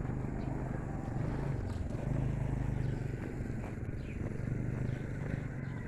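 A motor vehicle engine running steadily nearby, a low hum that grows a little louder about two seconds in.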